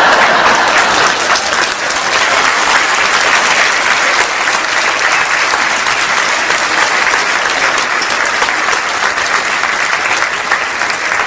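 A large audience applauding, loudest at the start and then holding steady.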